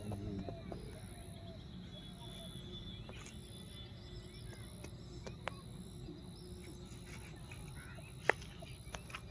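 Quiet rural outdoor ambience: insects trilling steadily on a high note, with a second insect sounding in regular pulses above it and faint bird calls. A few sharp clicks break through, the loudest about eight seconds in.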